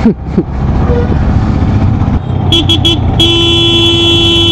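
Motorcycle engine running at city riding speed, then three quick horn toots about two and a half seconds in, followed by one long held horn blast. The honking is a warning to a rider ahead.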